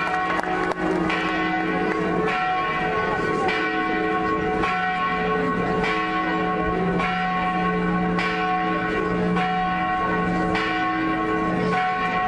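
Church bells ringing, struck in an even rhythm a little more than once a second, each strike ringing on under the next.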